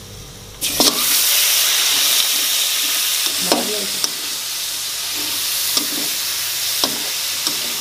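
Raw chicken pieces going into hot oil and browned garlic in a steel wok, starting a loud, steady sizzle about half a second in. A few knocks and scrapes of a metal spatula on the wok as the chicken is stirred.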